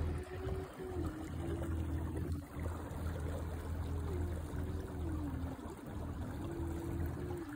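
Electric trolling motor running: a steady low hum with a thin whine that holds, then steps up or down in pitch several times as its speed changes, over the wash of water along the boat.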